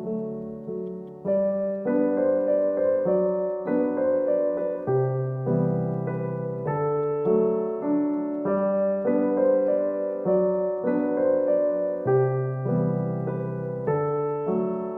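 Background music played on piano or electric piano: a gentle melody over repeating chords, the notes changing about every half second.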